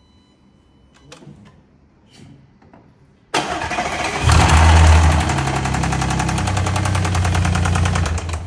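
Audi 3.0 TFSI (CGWB) supercharged V6 started by push button about three seconds in: the starter cranks briefly, the engine catches with a flare of revs and settles into a steady, evenly pulsing idle. It hammers as it runs, a knock that the owner puts down to piston slap on the left bank.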